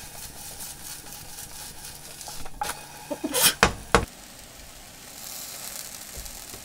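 Food sizzling and crackling in a frying pan, with a few sharp knocks about halfway through.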